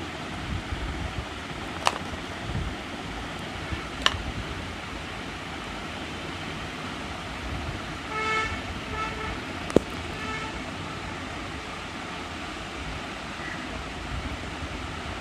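Steady background noise with a few sharp clicks, and a pitched tone sounding in three or four short toots about eight to ten seconds in.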